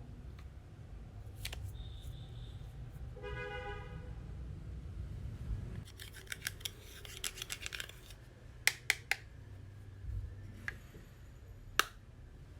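Scissors snipping, a run of quick crisp cuts followed by a few sharp, loud clicks.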